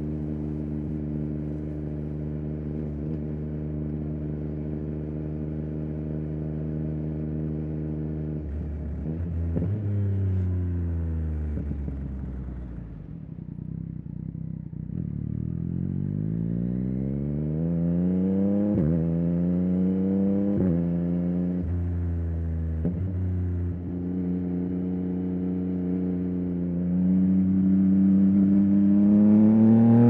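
2023 Yamaha XSR900's inline-three engine through a Spark aftermarket exhaust, under way. It holds steady revs, then the revs fall as the bike slows, and from about halfway it accelerates hard, the pitch climbing through three quick upshifts. It then pulls on with the revs rising gradually and climbing faster near the end.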